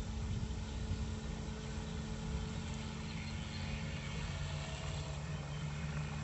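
RC bait boat's brushless electric motor running steadily out on the water, a low even hum over a fluctuating low rumble.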